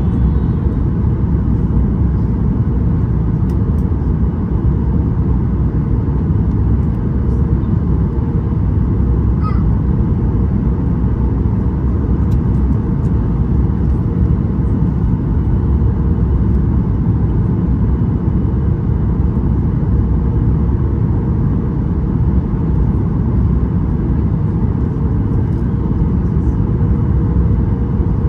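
Steady low rumble of engine and airflow noise heard inside the cabin of a Boeing 737 MAX 8 in flight, from its CFM LEAP-1B engines, with a faint steady hum running through it.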